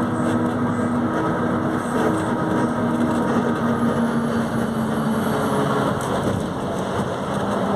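Volkswagen 17.230 OD bus's diesel engine running: a steady drone whose pitch shifts slightly a few times.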